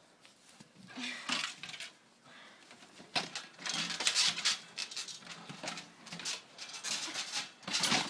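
Scuffling, rustling and thumps as wrestlers grapple and a body lands on a backyard trampoline, in irregular bursts after a quiet first second.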